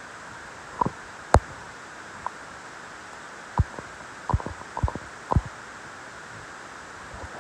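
Wood fire crackling in a metal fire pit: a steady hiss with sharp, irregular pops, the loudest about a second and a half in and a quick run of them in the middle.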